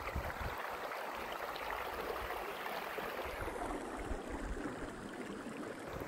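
Shallow mountain stream flowing over rocks: a steady hiss of running water.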